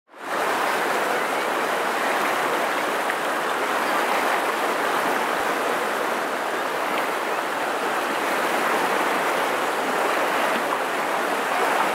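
Steady rush of river current running over rocks.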